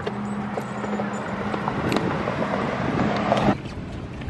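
Stroller wheels rolling over a concrete sidewalk, a steady rumble with rattling clicks that stops abruptly about three and a half seconds in.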